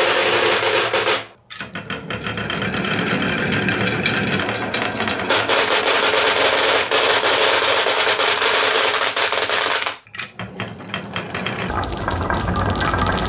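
Many marbles rolling and clattering down HABA wooden wave-slope tracks and dropping onto the marbles piled in a plastic toy truck bed: a dense, continuous stream of clicks and knocks. The clatter breaks off briefly twice, about a second in and again near ten seconds.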